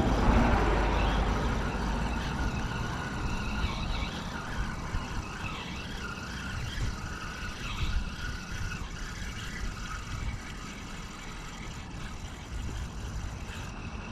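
A vehicle going by, loud low rumble at first, fading over the first few seconds. After that there is a steady background of traffic and wind noise with faint wavering high tones.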